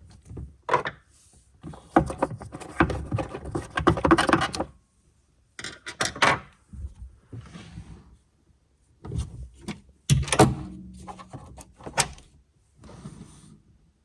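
Bursts of knocking, rubbing and clicking from hands working on parts of the car, with short pauses between them and a sharp knock about ten seconds in.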